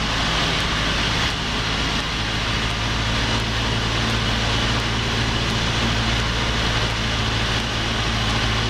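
Cessna 172P's four-cylinder Lycoming engine and propeller running steadily on final approach, heard inside the cockpit as an even low hum under a constant hiss of rushing air.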